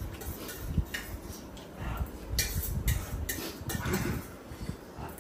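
Metal fork clicking and scraping against a plate, a few separate clinks.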